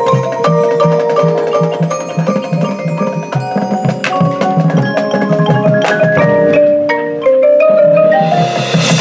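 Marching band front ensemble playing a mallet passage on marimbas and glockenspiel over a repeating low pulse. After about six seconds the notes step upward, and near the end a wash of sound swells in, building toward the full band.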